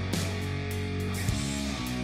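Background rock music with electric guitar and a drum beat.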